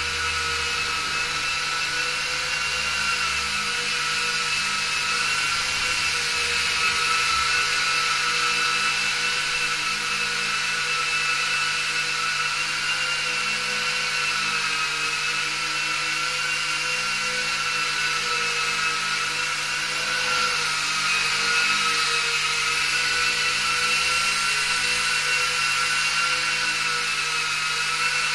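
Silverlit VTO toy RC plane's small electric motors and propellers whining steadily, the pitch wavering slightly up and down.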